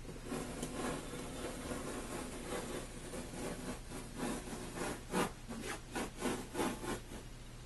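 A knife blade scoring the back of a tileboard (hardboard) sheet: a scratchy scraping as the blade is drawn along the cut line, with several short, harder strokes in the second half.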